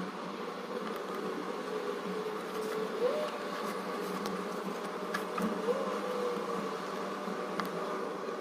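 A steady buzzing hum whose pitch briefly rises and falls twice, with a few faint light clicks.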